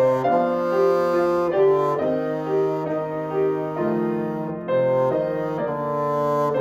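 Bassoon playing a classical melody with grand piano accompaniment, the notes moving along several to the second.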